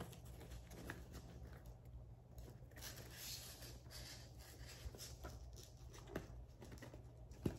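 Faint rustling and light scraping as a felt Christmas tree cut-out and its LED string-light wire are handled, with a sharp click near the end.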